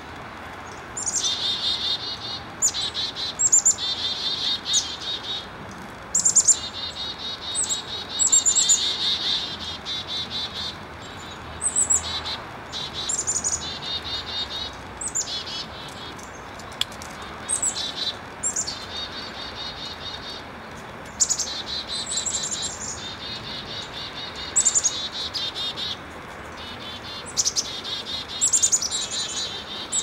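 Chickadees giving chick-a-dee mobbing calls over and over: each call is a few thin high notes followed by a run of harsh, buzzy 'dee' notes. It is the alarm that announces a predator, here a hawk, probably a Cooper's hawk.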